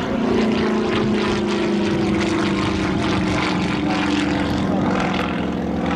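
A Yak-52's nine-cylinder radial engine and propeller running hard through an aerobatic manoeuvre, a steady drone whose pitch sinks slowly.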